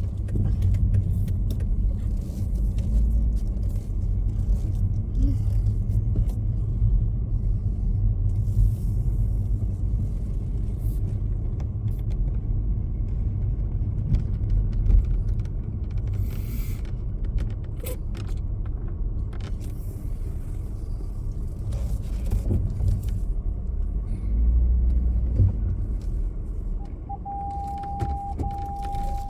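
Low road rumble heard from inside a moving road vehicle, with small rattles and clicks from loose items in the cabin. A steady beep-like tone sounds for about two seconds near the end.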